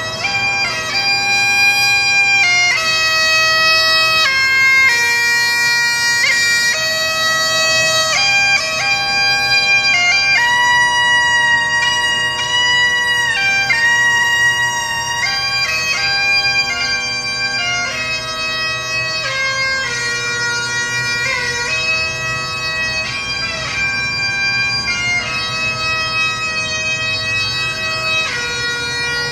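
Bagpipes playing a slow tune, the melody moving from note to note every second or two over steady, unbroken drones.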